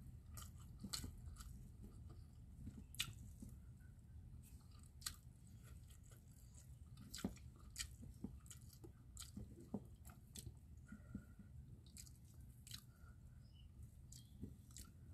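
Faint close-up eating sounds: a person chewing salted fish and rice eaten by hand, with irregular sharp mouth smacks and clicks.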